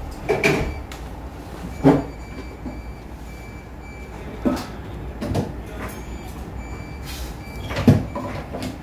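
Knocks and clicks of things being handled on a workbench, about five separate sharp knocks, the loudest near two seconds in and near the end.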